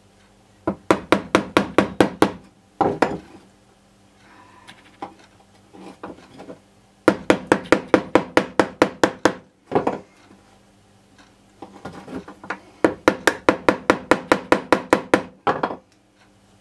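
A small hammer tapping quickly on a kinked bulb-horn part to square the kink up. The knocks come in three runs of about six a second, with a few single taps between.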